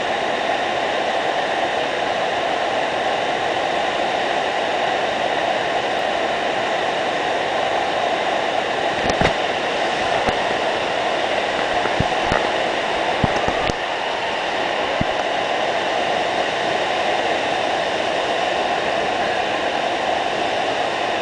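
Indoor surf-simulator wave machine: a thick sheet of pumped water rushing up and over the padded ramp, a loud, steady roar of water. A few short thumps near the middle.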